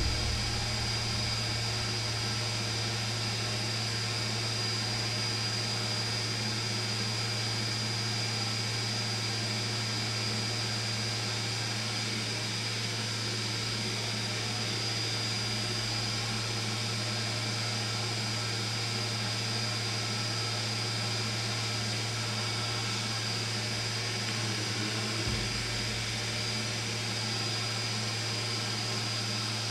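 A small fan running steadily: an even whir over a low hum, with a thin high whine on top.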